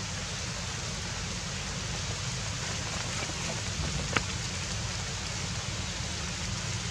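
Steady, even hiss with no clear pitched sound, and one short click about four seconds in.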